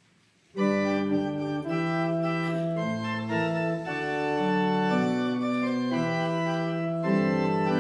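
Church organ playing a hymn introduction in sustained chords that shift every half second or so, starting about half a second in.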